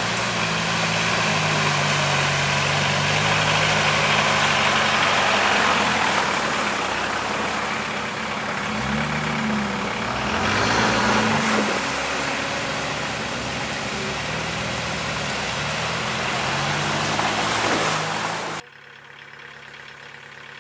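Off-road 4x4 engine running under load, its pitch rising and falling with the throttle, under a loud steady rushing noise. The sound cuts off abruptly near the end.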